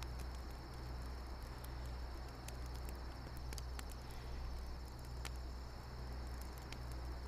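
Night ambience: a steady chorus of crickets chirping, with scattered crackles and pops of a campfire, over a low steady hum.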